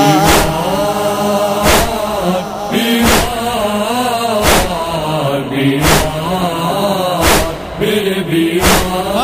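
Voices chanting a slow, drawn-out wavering melody without words, over a heavy thump about every one and a half seconds: the matam (chest-beating) beat that keeps time in a matami noha.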